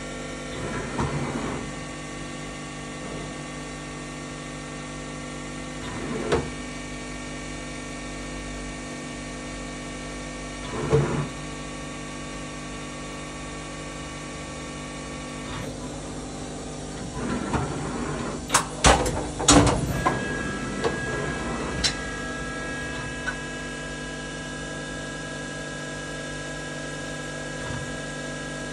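2010 Enshu E130 vertical machining center running, with a steady hum of its motors and pumps and brief swells every five seconds or so. From about two-thirds of the way in comes a burst of sharp mechanical clunks and clicks as a tool is loaded into the spindle, and then a new steady whine sets in.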